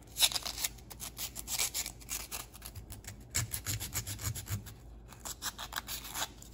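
Strip of 150-grit emery cloth rubbed back and forth by hand over a small metal disc: a quick run of short scratchy strokes with a brief pause near five seconds. The metal is being scuffed to give JB Weld epoxy something to grip.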